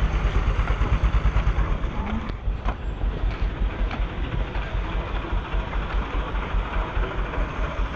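Wind rumbling and buffeting on a handheld phone microphone, with irregular pulsing and crunching as the person filming walks over a dirt and gravel road.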